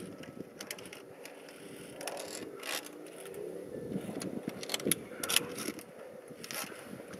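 Climbing hardware clinking and boots scraping on rock: a string of irregular metallic clicks and scrapes, with one sharper knock about five seconds in.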